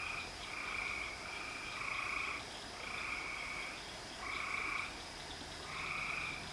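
Frogs calling at night: a run of repeated croaking calls, each about half a second to a second long, coming roughly once a second.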